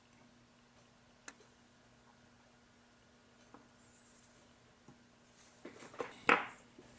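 Quiet workbench room tone with a faint steady hum, a small click about a second in, and a short burst of rustling handling noise near the end.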